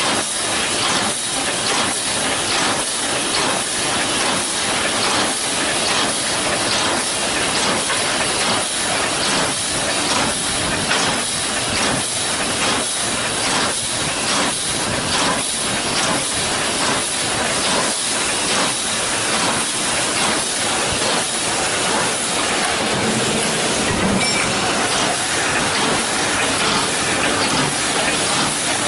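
Automatic wire mesh welding machine running: a steady, loud noisy hiss with regular clattering strokes about twice a second as it welds the mesh.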